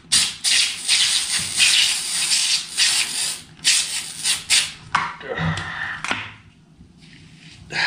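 Aerosol foam spray can hissing in several spurts as it sprays foam onto a face, stopping after about four and a half seconds.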